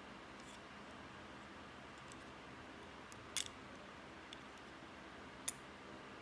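Two sharp little clicks about two seconds apart, with a few fainter ticks, over a low steady hiss: the small plastic and metal parts of a refrigerator door light switch being pried and slid apart by hand.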